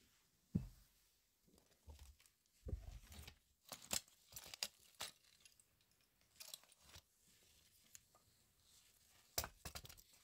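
Faint, irregular crunches, rustles and small knocks of someone moving about a cluttered room and handling things, with a dull thump about half a second in.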